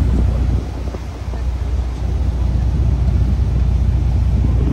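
Wind rumbling on the microphone on the open stern deck of a moving passenger boat, over the steady running of the boat's engine and its churning wake. The rumble eases briefly just over half a second in, then builds back.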